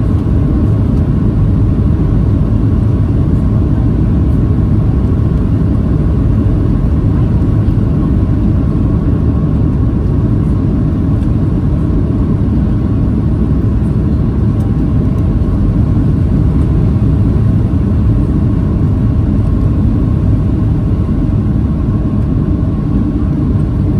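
Loud, steady cabin rumble of a Boeing 737-800 on final approach, its CFM56 jet engines and the rushing air heard from a seat behind the wing, running on unchanged as the plane reaches the runway.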